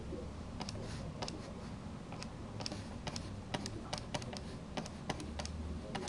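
Light, irregular clicks and taps, about three a second, from a stylus on a drawing tablet and computer keys during quick digital brushwork, over a low steady hum.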